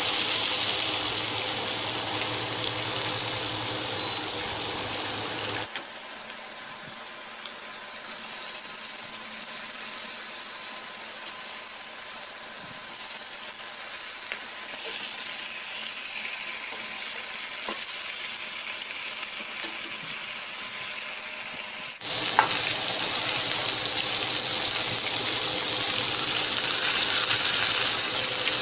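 Pork steak and garlic sizzling in butter in a frying pan: a steady frying hiss, louder in the last few seconds.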